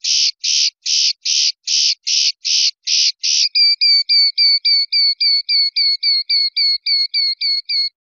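Common linnet singing: a run of rasping, buzzy notes at about two and a half a second, then from about three and a half seconds in a quicker series of clearer repeated notes, about four or five a second, that stops just at the end.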